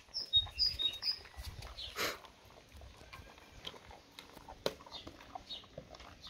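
Dogs eating a treat, with irregular wet chomping, licking and mouth clicks. The heaviest chewing comes in the first two seconds, with one sharp click about two seconds in.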